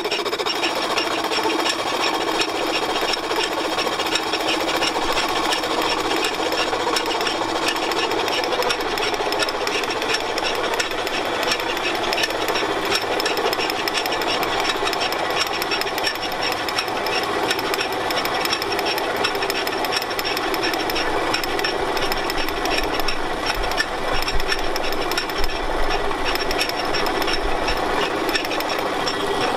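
A belt-driven Brown & Sharpe No. 2 horizontal milling machine running: a steady, even mechanical clatter from its belt, stepped cone pulley and gearing, with a few heavier thumps near the end.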